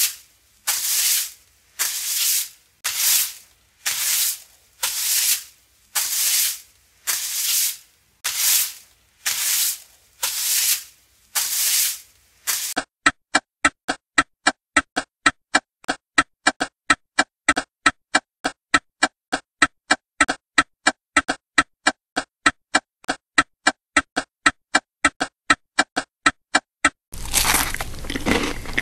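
A run of hissing bursts at about one a second, which stops about halfway through. It gives way to quick, even ticking at about three ticks a second, like a clock. Crunching sets in near the end.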